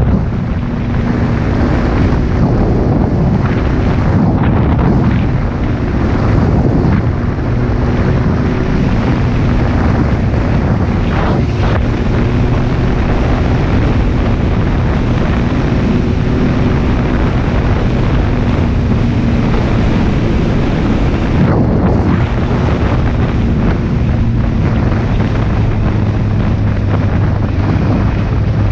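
Heavy wind noise buffeting the camera microphone on a moving motorcycle, with the motorcycle engine's steady drone underneath.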